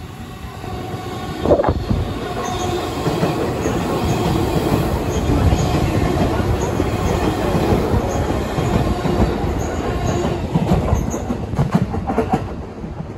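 JR 211-series electric multiple unit running through a station without stopping: a steady rumble of wheels on rail, with a short sharp sound about a second and a half in and a quick run of clacks over rail joints near the end.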